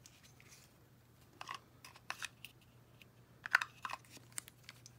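Small plastic parts of an MGA MiniVerse miniature juice dispenser handled in the fingers: scattered light clicks and taps, the loudest about three and a half seconds in, over a faint low hum.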